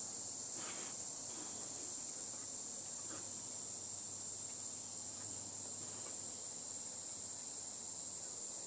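Steady, unbroken high-pitched chorus of insects such as crickets or cicadas, heard through an open porch.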